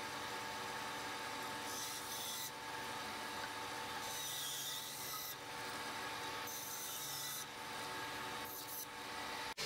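A dry, punky, worm-eaten wood block scraping and rubbing on a bandsaw's table as it is handled, in four scratchy spells of about a second or less, over a steady machine hum.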